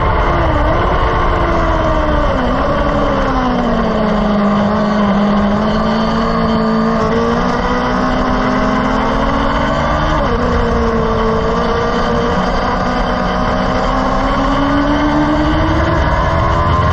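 Track-day vehicle's engine heard onboard at speed, with a constant rushing noise under it. Its pitch drops twice in the first few seconds, holds steady for several seconds, dips again about ten seconds in, then climbs steadily before falling back sharply near the end.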